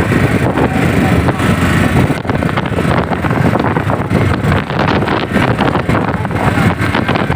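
Strong wind buffeting the microphone in loud, ragged gusts that never let up.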